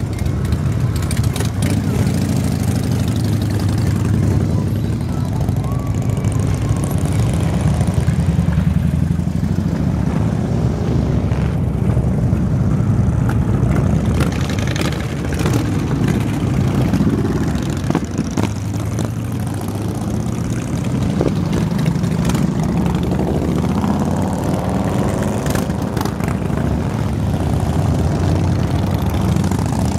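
A procession of large cruiser and touring motorcycles riding slowly past one after another, their engines running at low speed in a continuous low drone that swells and eases as each bike goes by.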